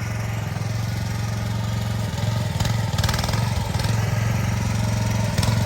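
Chinese AGT mini excavator's engine running steadily, with a few short knocks or clatters from the machine working, about halfway through and again near the end.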